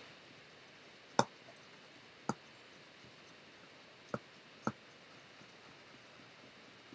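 Synthetic shaving brush being swirled in a lathering bowl to build lather from shaving soap, with four sharp clicks as the brush knocks against the bowl: about a second in, just after two seconds, and twice between four and five seconds. Otherwise only a faint background.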